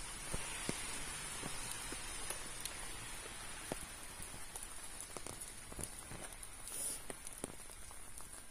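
Footsteps on a wet, gritty paved footpath: light irregular ticks about twice a second, over a steady faint high-pitched whine.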